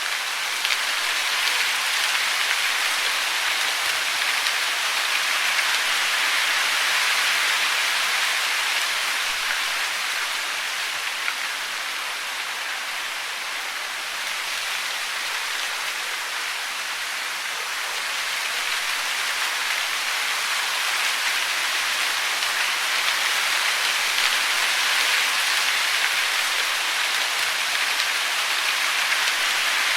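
Steady hiss of falling water, dense and even, easing slightly midway and swelling again toward the end.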